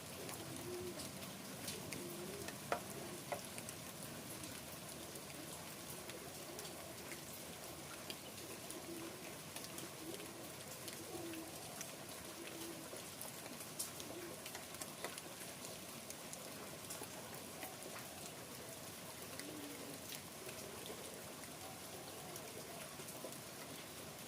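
Steady rain falling, with scattered drips and drops pattering. Over it, a bird gives short, low cooing calls again and again.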